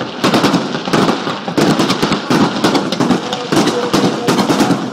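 Aerial fireworks shells bursting in a rapid barrage, many sharp bangs and crackles overlapping with no break between them.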